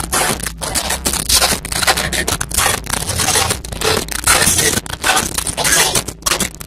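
Loud, rough rushing and scraping noise on the camera's own microphone, surging irregularly and cutting out for split seconds, over a steady low rumble.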